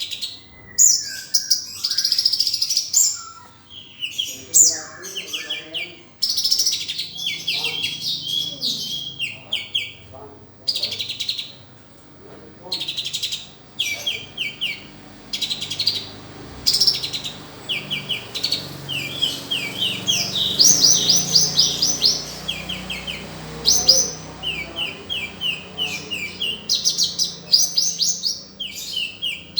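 Kolibri konin, a cage sunbird, singing a long run of rapid high chirps and fast trills of repeated notes, in quick phrases with short pauses, the varied 'isian' of mimicked phrases prized in song-training recordings.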